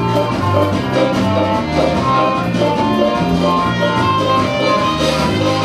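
Country-style music with fiddle and guitar over a bass line that steps from note to note.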